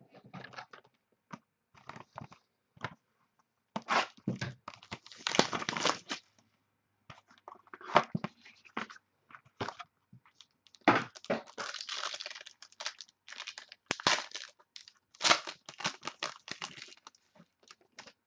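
A sealed trading card box and pack being unwrapped by hand: plastic wrapping crinkling and tearing in irregular bursts, with sharp crackles and handling clicks.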